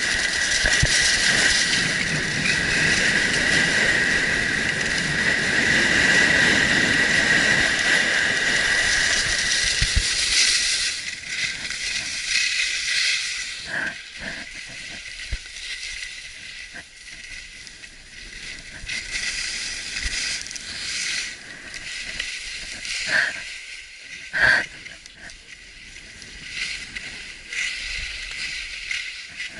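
Skis running fast on packed snow, with wind rushing over the camera microphone and a steady high whine. About ten seconds in the noise drops sharply as the skier slows, leaving softer scraping of the ski edges and two sharp clicks late on.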